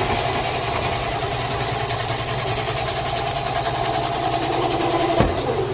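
Electric spiral potato cutter's motor running steadily with a fast, fine whirring rhythm as it cuts the potato and pushes it out, with a single knock near the end.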